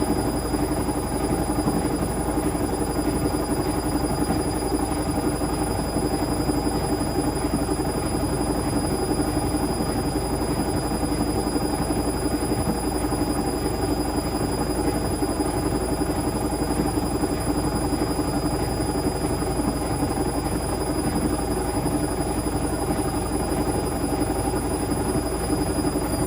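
Indesit Moon SIXL145 washing machine in its final spin at full speed (1400 rpm), running steadily with a constant high whine.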